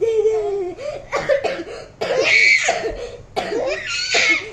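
A baby's high-pitched laughter in repeated bursts, mixed with coughing.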